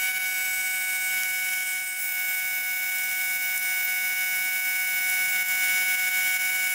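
Background music holding one long steady note.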